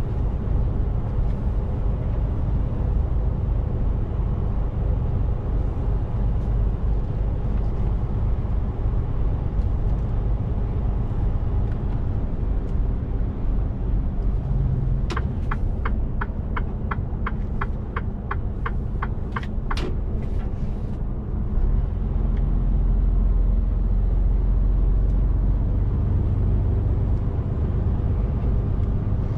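Mercedes-Benz Actros 1851's straight-six diesel engine and road noise heard inside the cab while driving, a steady low rumble that grows louder about two-thirds of the way in. Midway, a run of about a dozen quick, even ticks.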